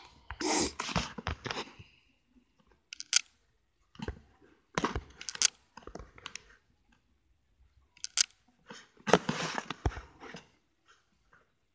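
A small dog sniffing and snuffling right at the phone, in about five short, irregular bursts of close rustling noise with a few clicks between them.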